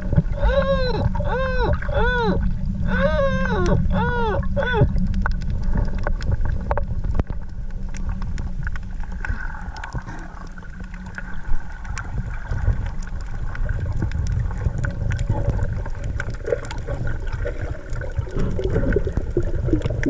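Underwater sound: a run of about eight short calls in the first five seconds, each rising then falling in pitch, over a steady low rumble of water. After that only the low rumble, with scattered faint clicks.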